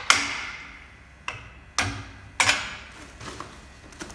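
Four sharp metal clanks in the first two and a half seconds, each ringing briefly, then lighter clicks near the end, as the pivot clamp of a rail hook switch is knocked open with the hook switch pole.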